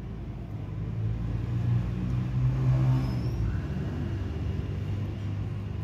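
A motor vehicle engine running with a low hum, growing louder toward the middle and then easing off slightly.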